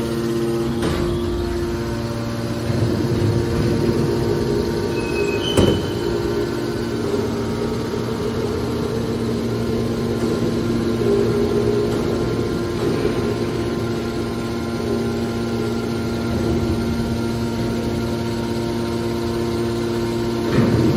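Hydraulic metal baler's pump motor running with a steady hum, with sharp knocks about five and a half seconds in and again near the end.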